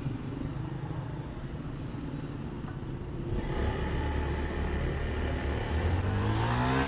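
Motorcycle engine ticking over while stopped, then pulling away about three and a half seconds in, louder, its pitch rising as it speeds up, with road and traffic noise around it.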